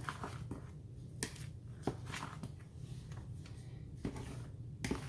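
A spoon stirring thick cornbread batter and scraping the bottom of the pan in irregular strokes, over a steady low hum.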